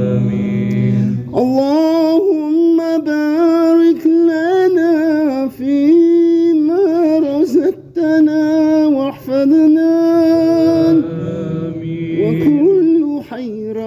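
A solo voice singing a slow, ornamented chant: long held notes that waver and bend in pitch, starting about a second in, with a brief pause for breath near the middle and a softer, lower passage near the end.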